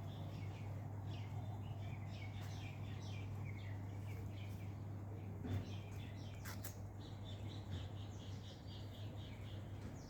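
Small birds chirping in quick, repeated high notes over a steady low hum, with a couple of brief clicks about midway.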